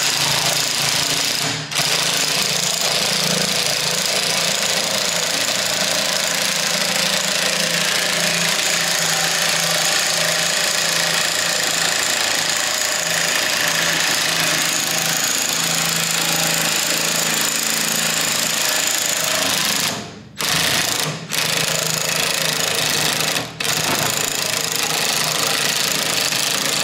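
Homemade motor-driven pipe bender running steadily as it bends a length of pipe. It stops briefly about 20 seconds in and again a second later, restarting each time, and cuts off at the end.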